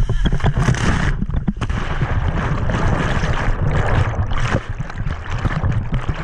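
Whitewater rushing and splashing around an inflatable raft as it runs a rapid, loud and continuous with a steady low rumble and frequent slaps of water.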